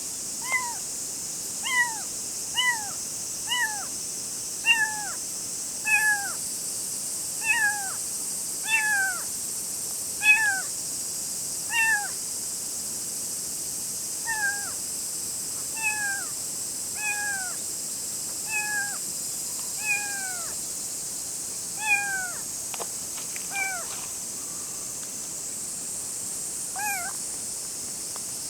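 A tiny kitten meowing over and over: short, high mews that fall in pitch, about one a second, thinning out to a few spread-out calls near the end, over a steady high hiss.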